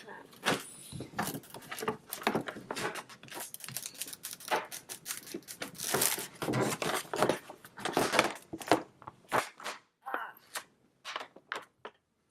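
Toy doll packaging being torn and pulled open: quick, irregular rips and crinkles of cardboard and plastic, thinning out to a few small clicks near the end.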